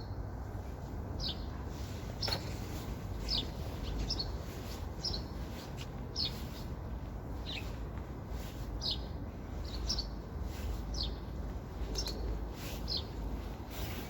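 A small bird calling over and over with short, high chirps that fall in pitch, about one a second, over a steady low rumble.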